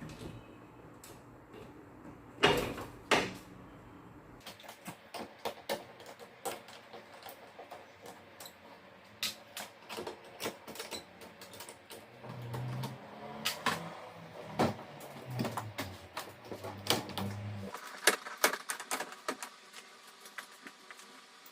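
Irregular clicks, clacks and knocks of hard parts being handled and set down while an air conditioner is taken apart for cleaning. Two louder knocks come about two and a half and three seconds in.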